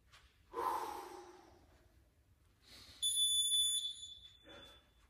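A heavy breath out that fades over about a second, then a single high electronic beep lasting just under a second.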